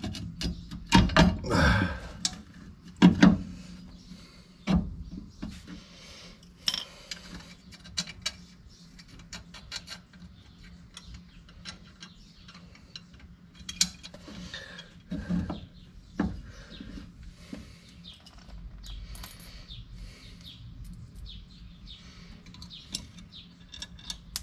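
Metal clicks and clinks of drum brake parts being handled and fitted: shoes, springs and hardware on the backing plate of a 1973 Dodge Dart's front drum brake, with hand tools knocking against them. The loudest clinks come in the first few seconds, with scattered lighter ones after, over a faint steady hum.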